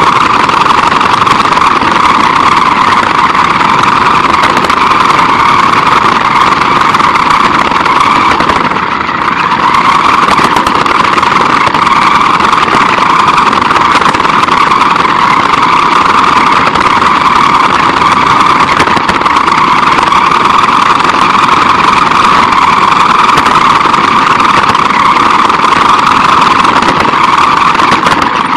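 RC car's drivetrain whining steadily as it drives, with its tyres rumbling on concrete, heard from a camera mounted on the car. The sound eases briefly about nine seconds in.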